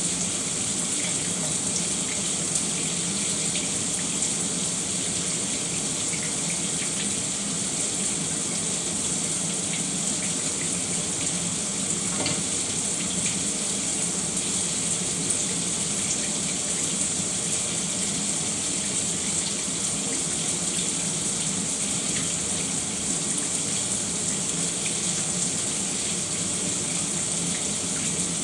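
Shower running steadily, water spraying and splashing down in an even hiss.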